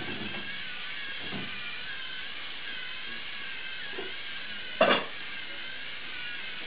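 Lego Mindstorms NXT servo motors whining as the crawler drives and its ultrasonic sensor sweeps side to side, the whine wavering up and down in pitch. A loud short double clack comes about five seconds in.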